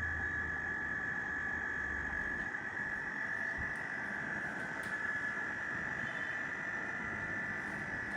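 LG 1.5-ton split AC indoor unit running with a faulty blower motor, making the strange, irritating hissing noise of the defect. It is a steady high-pitched whine over a hiss.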